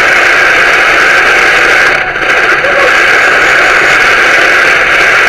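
Sony ICF-P36 portable AM/FM radio hissing with loud, steady static, tuned between stations, with a brief dip about two seconds in.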